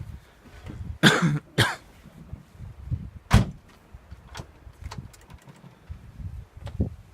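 Irregular knocking and clunking from a Ford Fiesta, with a few louder sharp knocks about a second in, shortly after, and at about three and a half seconds: an unidentified knock in the car.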